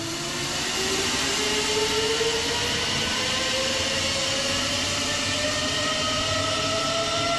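Zipline trolley pulleys rolling along the steel cable, with a whine that rises steadily in pitch as the rider picks up speed, over a rush of wind noise.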